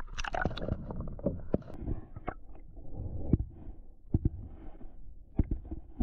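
Muffled underwater sound as the GoPro plunges beneath the sea surface: a burst of splashing clicks as it goes in, then a low rumble of water with scattered sharp clicks and knocks.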